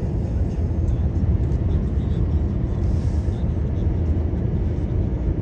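A car driving: the steady, low rumble of road and engine noise.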